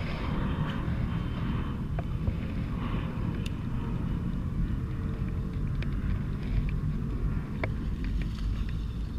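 Steady low outdoor rumble with a few faint sharp clicks scattered through it.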